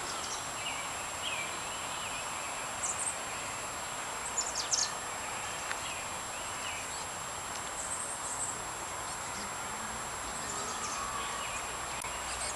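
Outdoor park ambience: a steady hiss of open air with scattered short, high bird chirps and twitters every few seconds, and a thin steady high tone underneath.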